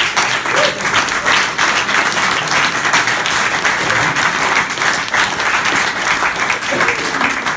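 A small group applauding: steady, dense hand-clapping that starts abruptly and keeps up without a break.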